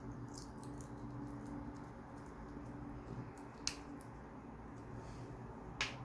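Faint handling of a clear plastic corner protector in the fingers: small crinkly ticks as it is pressed and flexed, with two sharper clicks, one past the middle and one near the end.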